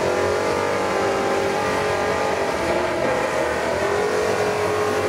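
Car engine held at high revs during a burnout, the rear tyres spinning in place and smoking on the drag-strip start line. The revs stay high and steady throughout, sagging slightly midway before rising again.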